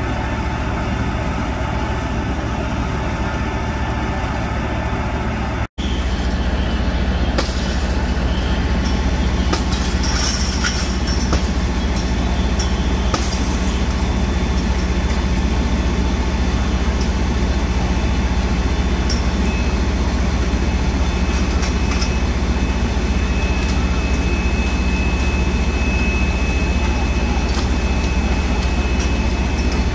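Fire trucks' diesel engines running steadily at the scene, a constant heavy hum, with a brief dropout about six seconds in and occasional short knocks after it.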